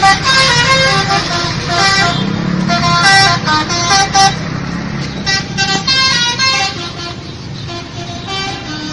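Indonesian bus 'telolet' horn, a multi-tone horn playing quick runs of short notes stepping up and down in pitch, over the steady rumble of the bus's engine. The horn is loudest in the first half and eases off after about seven seconds.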